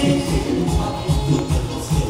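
Background Latin music with a steady beat.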